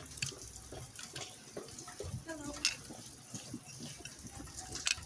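Small clicks and taps of the deadbolt lock's metal parts being handled and fitted during reassembly, with a brief faint murmur about two seconds in.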